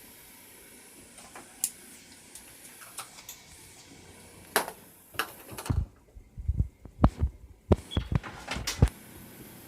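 Kitchen utensils and containers being handled: a few faint clicks, then from about halfway a cluster of sharp knocks and low thumps as things are picked up and set down.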